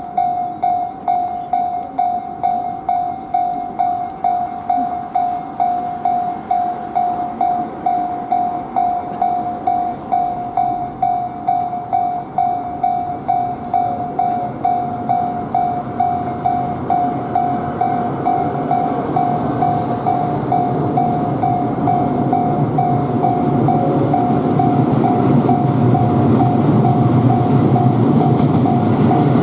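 Japanese railway level-crossing warning bell ringing steadily, about two dings a second. Over the last third a train's running noise builds up and passes, and its low rumble becomes the loudest sound near the end.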